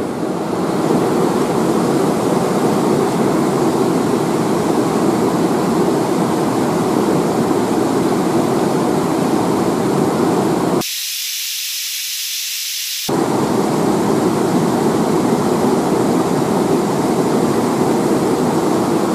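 Steady rush of fast river water running over rocks. About eleven seconds in, the deeper part of the sound cuts out abruptly for about two seconds, leaving only a thin hiss, then comes back.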